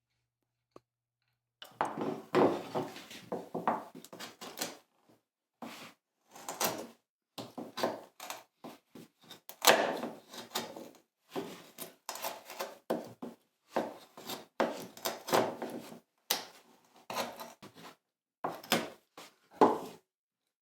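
Hand tools paring wood from the bottom of a shallow recess cut for a knot patch: a long series of short, irregular scraping cuts in clusters, starting about two seconds in.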